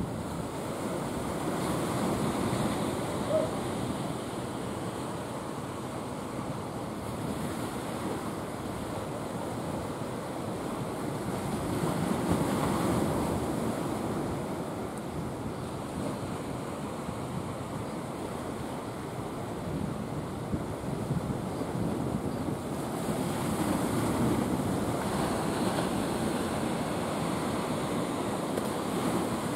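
Sea surf washing onto the beach, a steady rush of water that swells in slow surges about every ten seconds.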